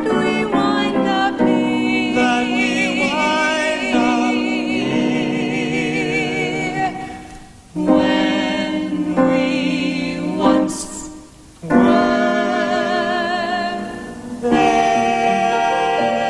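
Voices singing long held notes with vibrato in harmony, with piano accompaniment, breaking off briefly about eight and twelve seconds in.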